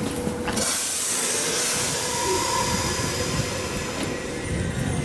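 Toyama Chiho Railway 10030 series electric train, a former Keihan 3000 series, running past close by: a steady rumble of wheels on rail under a loud hiss, with a brief wheel squeal about two seconds in.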